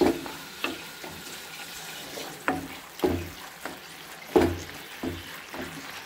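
Wooden spatula scraping and knocking against a nonstick pan about eight times, at irregular intervals, as chicken in sauce is stir-fried on high flame. Underneath is a steady sizzle as the water sprinkled into the pan cooks off.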